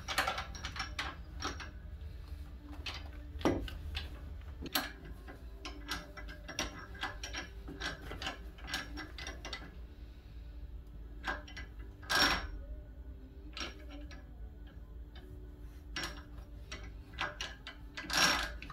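Irregular small metallic clicks and ticks as a new steering tie rod end is turned round and round onto its threaded rod, with a few louder knocks among them.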